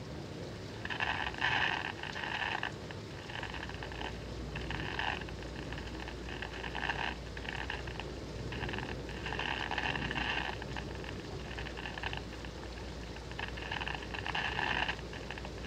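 A radio picking up lightning as bursts of static, about one a second, some longer and louder than others, over a steady hiss.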